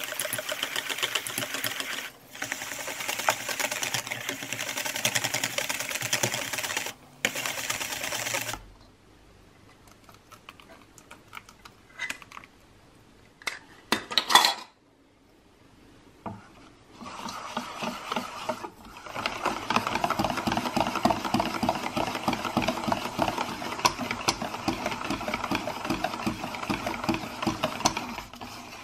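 Wire whisk beating crêpe batter in a metal bowl: fast, steady rattling of the wires against the bowl. It stops about eight seconds in, leaving a few scattered knocks and one short louder sound, then the whisking starts again a little after halfway and runs until just before the end.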